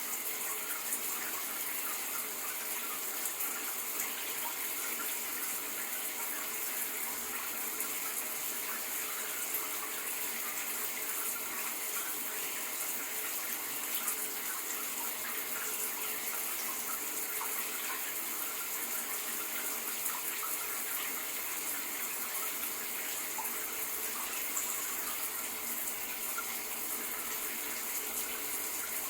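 Shower running steadily, the spray of water hitting a surface as an even hiss with small scattered splashes.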